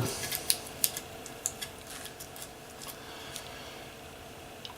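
Light, irregular clicks and scrapes of a tool picking at a label on a fiber laser source's metal housing to uncover a hidden screw. They are most frequent in the first two seconds or so, then thin out.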